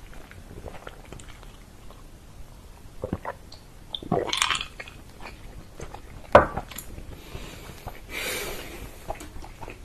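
Close-miked chewing of chicken, with soft mouth clicks throughout and a louder sip from a mug about four seconds in. A single sharp knock a little after six seconds, most likely the mug being set down on the table.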